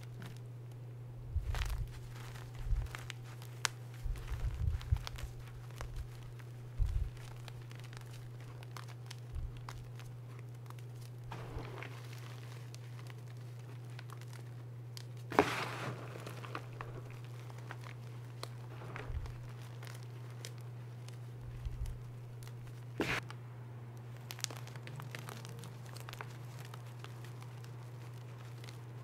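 Crumbled reformed gym chalk crushed and sifted by hand: dry crunching and crackling of chalk chunks and powder in scattered bursts, the loudest crunch about halfway through. A steady low hum runs underneath.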